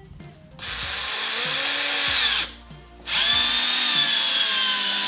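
Cordless drill driving screws through a plastic slatwall panel into the wall, in two runs of about two seconds each with a short pause between; the motor's whine sinks slightly in pitch near the end of the second run.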